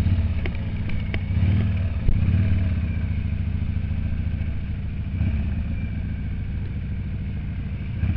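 Harley-Davidson Sportster V-twin engine running steadily as the motorcycle is ridden along a rough trail. The engine swells briefly twice in the first few seconds, and there are a couple of sharp clicks in the first second or so.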